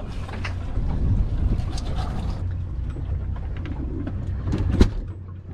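Boat's outboard engines idling with a steady low hum, under scattered knocks of handling on deck. A loud thump comes near the end, while the gutted wahoo go into the iced fish box.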